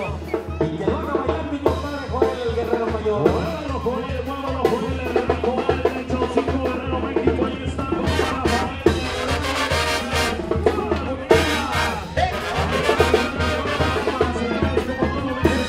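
Mexican banda music: a brass band playing with a steady low beat.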